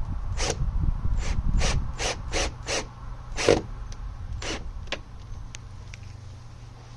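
Power screwdriver with a PZ2 bit driving a long screw through the charger's back plate into a wooden board. A run of irregular sharp clicks and ratcheting creaks over a low motor rumble, thinning out after about three seconds.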